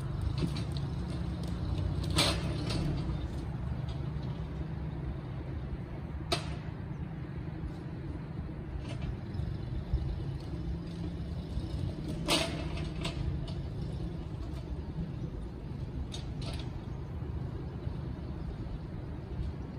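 An engine running steadily, with a few sharp knocks, the loudest about 2 and 12 seconds in.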